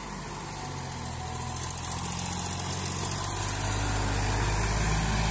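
Sonalika tractor's diesel engine running steadily, growing louder through the second half as the tractor comes closer.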